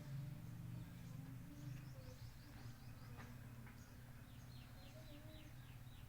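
Faint bird chirps over a steady low hum, with a quick run of about eight short falling chirps a little past the middle.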